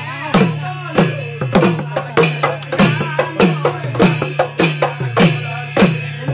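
Barrel drums (dhol) beaten in a steady Husori dance rhythm, with strikes about every 0.6 s. Each strike has a deep note that bends down in pitch, over a steady low hum.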